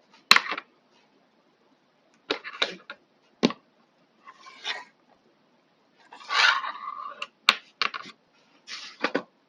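Small hard parts of a hair trimmer and its replacement battery being handled: three sharp clicks or knocks, with short scraping and rustling noises between them.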